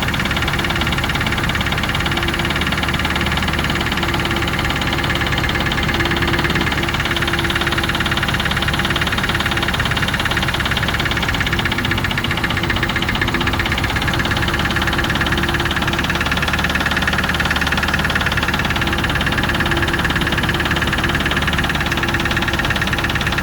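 Range Rover Classic's 3.5-litre Rover V8 running steadily with a rapid, even knock from the engine.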